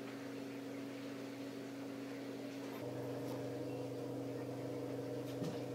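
Steady low electrical hum over room tone, with a few fixed pitches; about three seconds in the hum changes and grows slightly louder.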